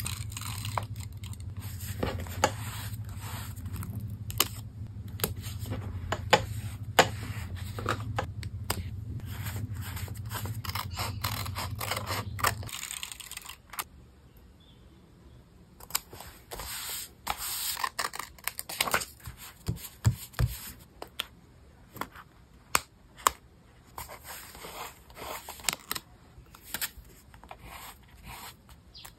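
Paper and stickers being handled for a journal page: a string of small scratches, rustles and clicks, with some snipping and tearing. A low hum underneath stops suddenly about halfway through.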